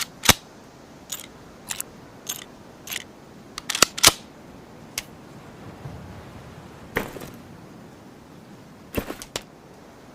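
Ruger American Rimfire bolt-action rifle making a series of sharp, short mechanical clicks and snaps at irregular intervals. The loudest come about a quarter second in and about four seconds in, with a quick cluster of clicks near the end.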